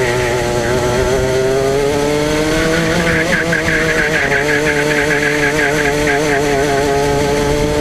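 Go-kart engine running hard at racing speed, heard close up from on board the kart; its note wavers and climbs a little a second or two in, then holds through a run of corners.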